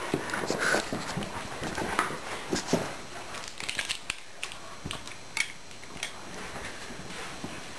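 Border Collie puppy moving about on a wooden floor close by, with scattered clicks, knocks and scuffles of paws and a handled plate, busiest in the first three seconds.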